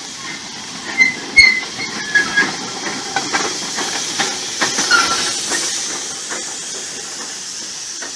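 Small tank steam locomotive moving slowly past, hissing steam. There is a series of sharp knocks and brief high squeaks in the first five seconds, and the hiss eases off toward the end.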